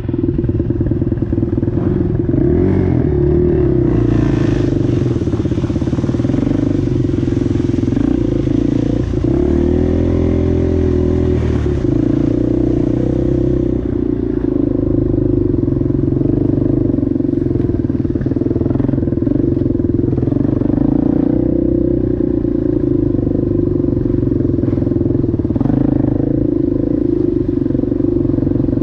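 ATV engine running continuously, its pitch rising and falling a few times with the throttle.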